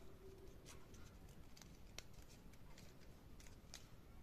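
Faint crinkling and ticking of folded origami paper being handled as its flaps are tucked together: scattered crisp clicks, the sharpest about two seconds in and near the end.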